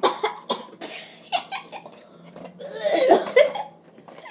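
Children laughing in short breathy bursts, with a louder outburst of laughter about three seconds in.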